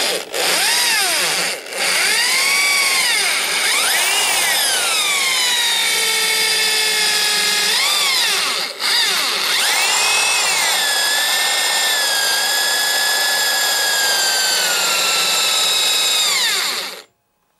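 Handheld electric drill running with a blunt 6 mm twist bit pressed against a metal bar, its motor whine rising and falling in pitch as the trigger is worked, with a few brief breaks, then stopping near the end. The dull bit only rubs the metal and does not cut.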